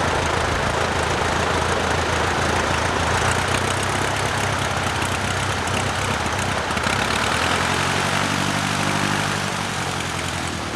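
Aeronca Champion 7DC's four-cylinder Continental C-85 engine and propeller running steadily on the ground, easing off slightly near the end.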